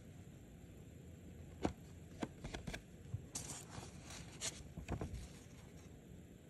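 Crisp old paper banknotes being handled: a handful of short crinkles, rustles and light taps as one note is lifted off the stack and the next is laid out, between about one and a half and five seconds in.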